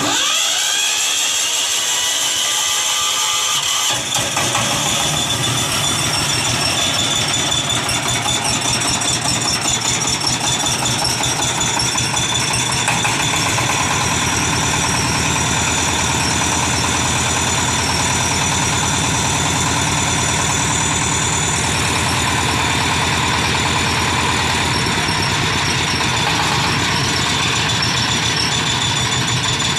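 Electric starter cranking a paddy-field boat tractor's 20-horsepower single-cylinder diesel engine. The engine catches about four seconds in, then runs steadily with an even chugging beat.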